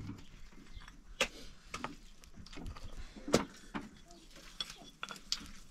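Scattered light knocks and clicks, the loudest a little past halfway, with another sharp one about a second in.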